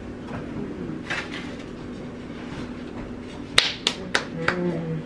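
Hands clapping together about four times in quick succession, sharp and loud, over a steady low hum.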